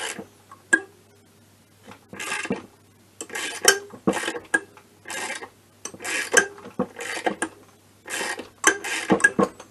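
Ratchet wrench worked back and forth in repeated strokes, about one a second, driving a cylinder stud into an MBK Booster/Spirit scooter engine's aluminium crankcase with a stud-setting tool. The tool is a little big for this small engine and rubs inside the case on each stroke. The first couple of seconds hold only a few clicks.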